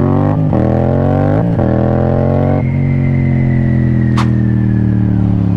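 Yamaha motorcycle engine pulling in second gear, its pitch climbing with two brief dips, then the throttle rolled off about two and a half seconds in and the pitch sinking slowly as the bike coasts. A single sharp click near the end.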